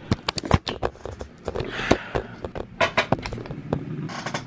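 Handling noise close to the microphone: irregular clicks, knocks and rustling as the camera is gripped and adjusted.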